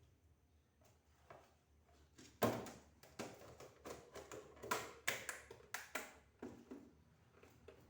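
Scattered light knocks and taps of items being handled and set down during fridge cleaning, the loudest about two and a half seconds in.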